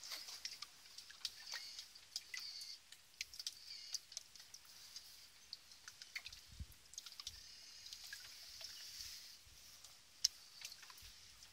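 Shallow water trickling and lapping, with many small drips and ticks.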